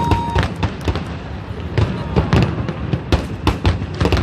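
Aerial fireworks bursting, many bangs in quick irregular succession with smaller cracks between them; a steady whistling tone stops shortly after the start.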